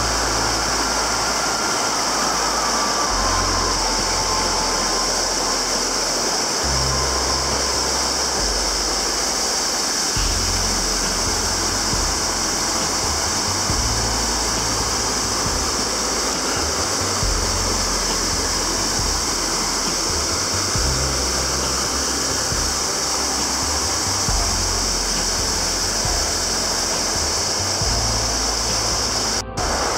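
Waterfall pouring over rocks into a pool: a steady, loud rush of falling water.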